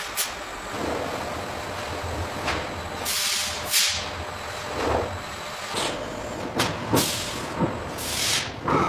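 Machinery running steadily, with several short bursts of hiss and a few sharp knocks.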